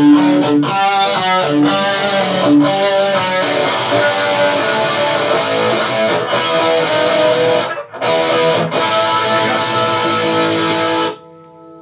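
Electric guitar riffs and chords played continuously, with a couple of brief breaks. They stop abruptly near the end, leaving a chord ringing quietly.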